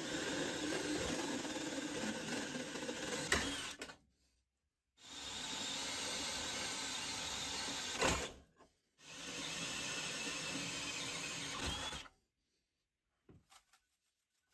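A power tool running steadily in three stretches of about four seconds each. Each stretch ends with a click and cuts off abruptly to silence.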